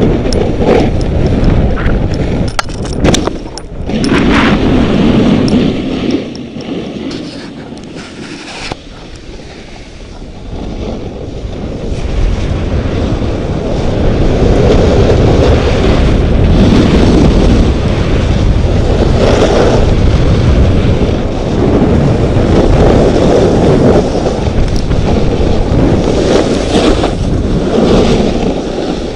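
Wind buffeting the microphone of a camera moving fast downhill on skis, a low rumble that swells and eases, with skis scraping over packed snow. A few sharp knocks sound in the first few seconds.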